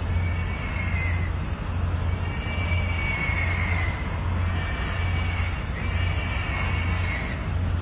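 Pigs screaming inside a slaughterhouse, heard from outside the plant as a run of long, high-pitched squeals, each lasting a second or more, one after another over a steady low hum.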